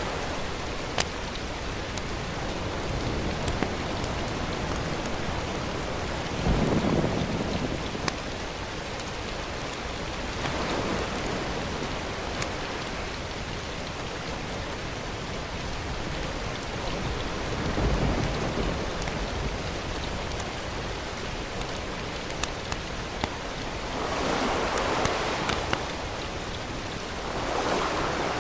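Food frying in hot oil in a pan, a steady sizzle with scattered crackles and pops and a few louder swells.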